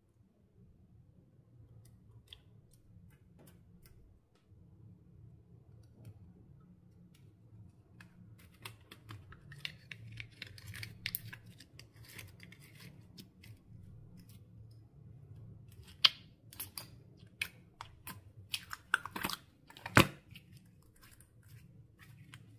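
Clear slime being worked by hand, giving a run of small crackling clicks and pops that start about a third of the way in, with a few sharper snaps near the end.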